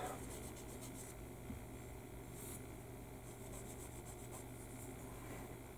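Sanding stick rubbed lightly back and forth along a small plastic model kit part, a faint scratchy rubbing repeated stroke after stroke.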